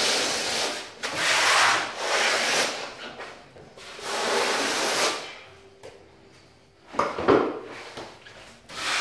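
Steel notched trowel scraping tile adhesive across a concrete floor in several long strokes, combing it into ridges; the strokes stop about five seconds in. A short clatter follows about seven seconds in.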